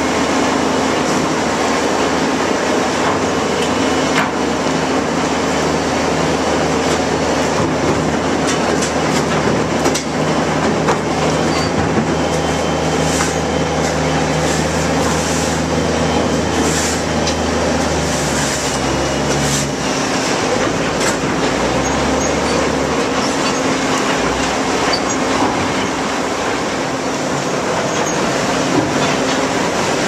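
Molten slag pouring out of a tipped rail-car slag ladle down a slag bank: a continuous rushing noise over a steady mechanical hum from the ladle car machinery. The lowest part of the hum stops about two-thirds of the way through.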